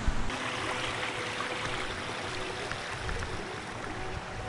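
Spring water from the hillside running steadily down a stream channel, with a brief thump at the very start.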